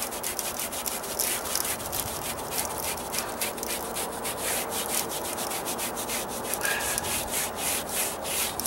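Paintbrush scrubbing Dryvit stucco patch material onto a textured stucco column, in quick, even, scratchy back-and-forth strokes, about four a second.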